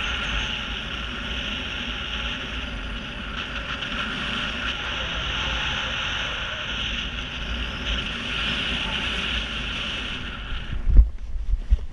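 Steady wind rushing over a helmet camera's microphone as a skydiver descends under an open parachute canopy. Near the end the wind noise cuts off at touchdown and a few low thumps follow.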